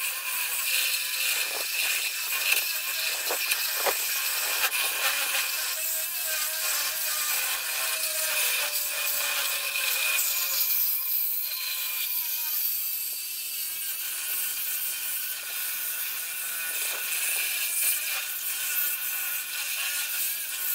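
Reciprocating saw with a DeWalt Elite Series thick-metal blade cutting a steel I-beam: a steady, harsh rasp of blade teeth on steel, with a metallic squeal that wavers in pitch through the middle of the cut.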